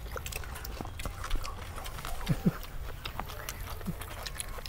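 A person chewing a mouthful of food with the mouth closed: wet smacking and clicking mouth sounds, with a few short low vocal sounds about halfway through.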